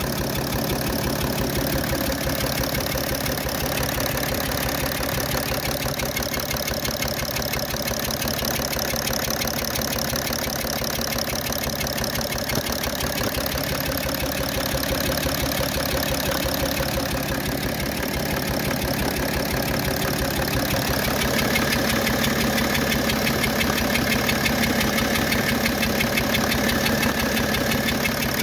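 BMW 730d's M57 straight-six turbodiesel idling with a fast, even clatter and a grinding noise that the owner says is new. About two-thirds of the way in, its note changes and it gets slightly louder.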